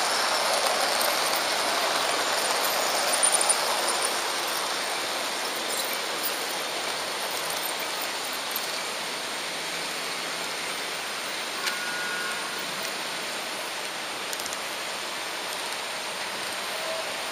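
H0-scale model train running along the layout track: a steady rushing noise of wheels on rails. It is louder for the first few seconds while a second model train passes close alongside, then settles lower.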